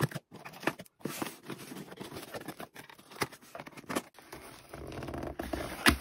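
Scissors slitting the packing tape on a cardboard shipping box, then the box's cardboard flaps being pulled open and scraping against each other, with a sharp knock just before the end.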